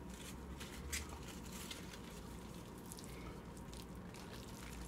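Faint food-handling sounds: lettuce leaves being handled and a wooden spoon scooping stir-fried rice in a metal pan. A few soft, scattered clicks come through.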